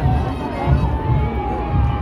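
Large crowd cheering and yelling, with one long high held note through most of it and a low pulse about four times a second underneath.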